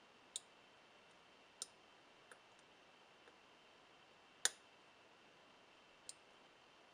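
Faint, sparse clicks of fingers handling a metal-can crystal against the pins of a frequency meter's test socket: about six small clicks, the sharpest about four and a half seconds in. Under them runs a faint steady high-pitched hum.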